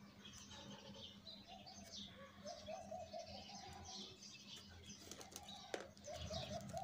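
Faint rustling and tapping of a cardboard parcel being handled and turned over, with birds chirping faintly in the background.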